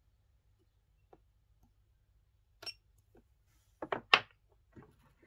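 A MASH mini spot welder's handheld pen probes firing a level-4 weld pulse into nickel strip on an 18650 cell, a sharp crack about two and a half seconds in among a few faint clicks. About four seconds in, louder knocks follow as the probes are laid down on the wooden table.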